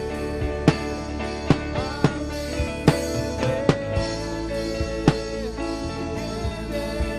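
Worship music played by a band: sustained chords over a drum kit striking a slow, steady beat.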